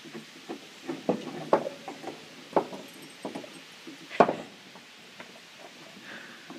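A dog chewing and gnawing on a bone, with irregular clicks and knocks of teeth and bone, the sharpest about four seconds in.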